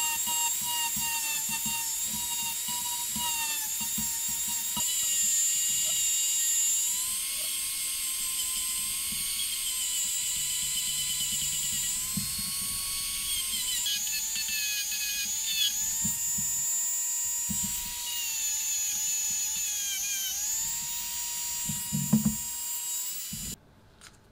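Rotary multi-tool with a sanding drum running at high speed, a steady high whine whose pitch dips and recovers as the drum is pressed against the rusty steel laminations of a hammer drill motor's stator. A few knocks just before the tool cuts off near the end.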